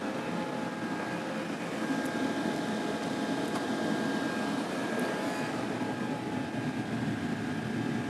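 Diesel air heater running steadily at full burn: a continuous whirring rush from its combustion blower and burner, with a few faint steady tones.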